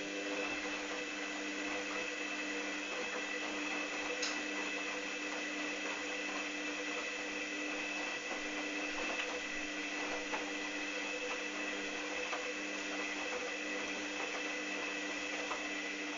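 Hoover Dynamic DYN 8144 D washing machine's motor running with a steady whine, turning the drum during the pre-wash, starting as the sound opens and stopping near the end.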